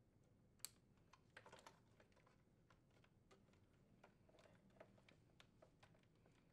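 Near silence with faint, scattered clicks and ticks from a wire harness and plastic connectors being handled and hooked behind a plastic retaining hook in a refrigerator dispenser housing. One sharper click comes just over half a second in.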